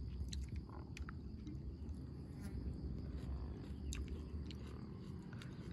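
A person chewing a mouthful of noodles, with a few scattered light clicks, over a steady low rumble.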